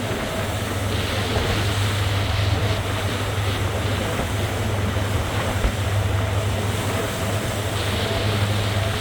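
Boat engine running with a steady low drone, over a rush of water and wind noise that swells twice.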